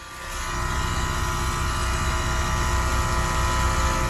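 Central-air condenser unit running: the fan's steady whoosh and motor hum with several fixed tones, swelling up in the first half second and dropping off sharply at the end.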